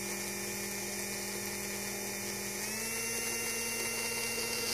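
Small electric fan motor running with a steady hum. A little under three seconds in, its pitch steps up slightly as the motor is sped up to the next speed setting.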